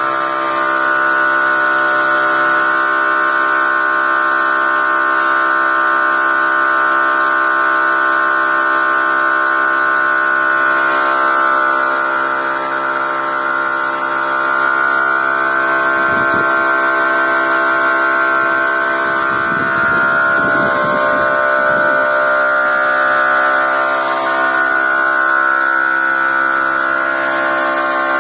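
Electric spray gun running steadily for wood polishing: a loud, constant motor whine with a strong high tone.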